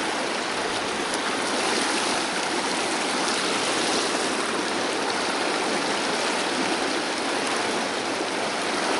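Mountain river rushing over rocks and small rapids: a steady, even rush of water.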